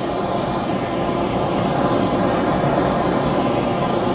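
Hand-held gas torch burning steadily, a continuous rushing noise, as it heats an aluminium lamp arm for low-temperature brazing.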